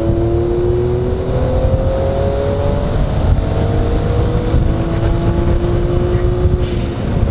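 The turbocharged 657cc inline-three of a modified Suzuki Cappuccino, fitted with a bigger turbo, pulling under acceleration, heard from inside the cabin. The engine note climbs steadily, drops about three seconds in as the next gear is taken, climbs again, and cuts off near the end with a short hiss.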